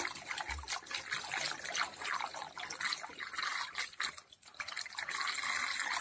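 Cold water poured from a glass bottle into a plastic funnel, splashing in uneven spurts. The stream breaks off briefly about four seconds in, then runs on more steadily.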